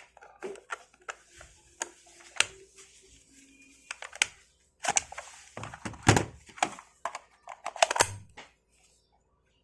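Irregular plastic clicks and knocks of a cordless impact wrench's battery pack being pulled out and another pack slid in and latched, with handling noise between.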